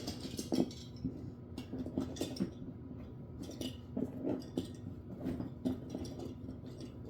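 Fidget toys being handled and knocking together, giving a scatter of light, irregular clicks and clinks.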